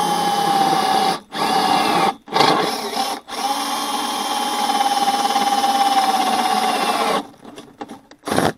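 Power drill with a 3/8-inch bit boring through the crimped end of 14-gauge galvanized steel tubing, its motor whine breaking off briefly three times in the first few seconds, then running steadily until it stops about seven seconds in.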